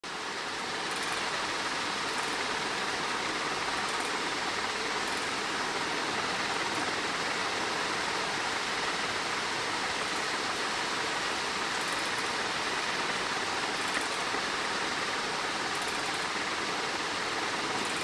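Steady, even hiss of background noise, with no distinct calls or knocks standing out.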